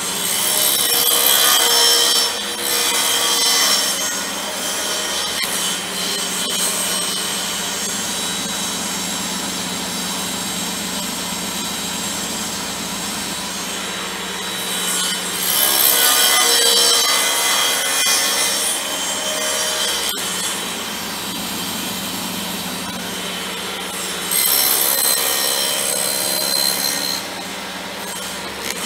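Table saw running steadily while its blade cuts a shallow slot across an 18 mm plywood panel pushed over it on a crosscut sled, pass after pass, to clear a 10 mm deep dado. The cutting gets louder three times, near the start, about halfway through and near the end.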